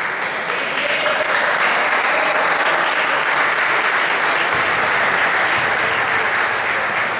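Spectators applauding at a basketball game, swelling up at the start and holding steady for several seconds.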